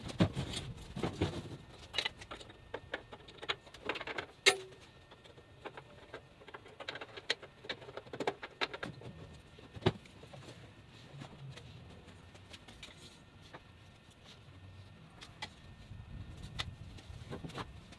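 Scattered clicks, knocks and light rattles of an aluminum extrusion frame and its parts being handled and shifted as the top section is forced down over a water tank. The sharpest knock comes about four and a half seconds in, and the handling thins out in the second half.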